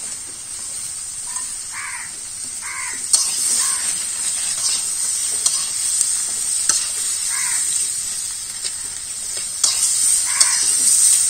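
Flat beans and potatoes stir-frying in a metal karahi: a steady sizzle, with the spatula scraping and knocking against the pan several times.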